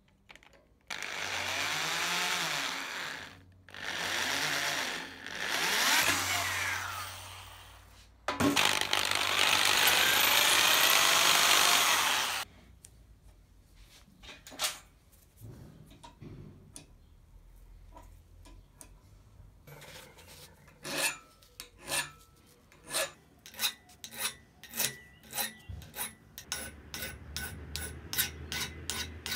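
Hand-held power drill boring into a small brass cap nut held in a vise, in four bursts with the motor's whine rising and falling, the last the longest and loudest. After a pause with a few light clicks, a hand file rasps across the brass in quick, even strokes, about two a second.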